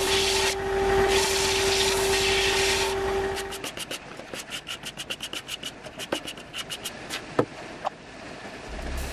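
A bench belt and disc sander runs with a steady hum while wood is pressed to the belt, scraping loudly in two spells; the machine sound stops a few seconds in. Then come quick back-and-forth rasping strokes of a hand sanding block on wood, about four a second, and a few wooden knocks as blocks are set down on the bench.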